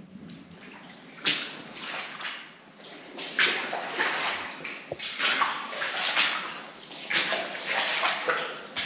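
Footsteps wading through shallow water on a mine tunnel floor, a splash with each step about once a second.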